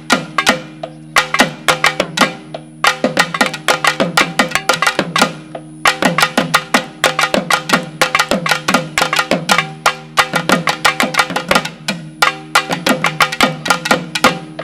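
Naiyandi melam, a Tamil folk drum-and-pipe ensemble, playing: rapid, sharp drum strikes in dense rhythmic runs over a steady held low tone.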